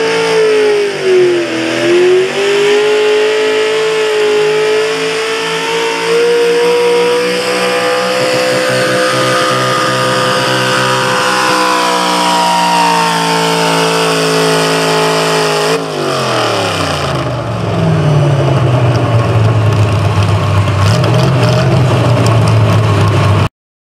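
Pulling tractor's engine at full throttle dragging a weight-transfer sled, holding a high steady pitch with a brief dip about two seconds in. About sixteen seconds in it winds down to a much lower steady drone as the pull ends.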